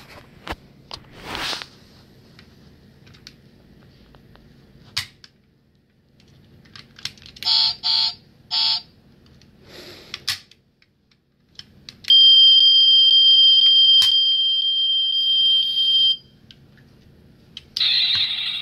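Toy Tesla Model X's electronic sound effects from its small built-in speaker: scattered clicks, three short beeps in the middle, then a steady high electronic tone for about four seconds, the loudest part, and a noisy burst near the end. These are the toy's engine and exhaust effects, oddly out of place on a Tesla.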